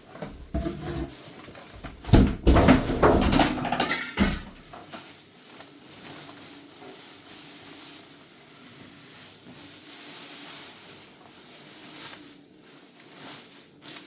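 Handling noise: rustling with several knocks and clicks for a couple of seconds, then a faint steady hum.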